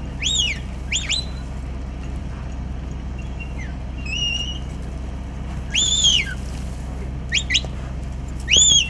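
A bird calling: short, high arched chirps every second or two, some in quick pairs, the loudest about six seconds in. A steady low rumble runs underneath.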